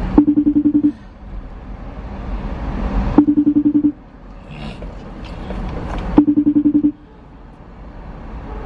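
Outgoing phone call ringing through a car's hands-free speakers: three short, rapidly pulsing ring tones about three seconds apart, over steady road noise in the cabin.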